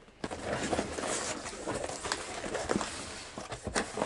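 Cardboard shipping box being opened by hand: the cardboard rustling and scraping, with irregular crackles and knocks, one sharper knock near the end.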